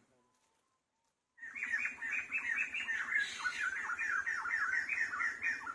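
A rapid run of short, high, falling calls, about five a second, from an animal, starting about a second and a half in.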